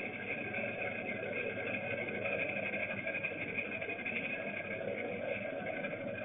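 Steady, unbroken background noise, a constant hiss with a higher band over a low rumble, with no distinct events.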